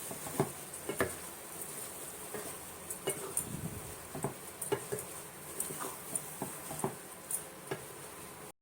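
Spoon stirring mushrooms and spice powders in a cooking pan, with irregular clicks and scrapes of the spoon against the pan. The sound cuts off abruptly near the end.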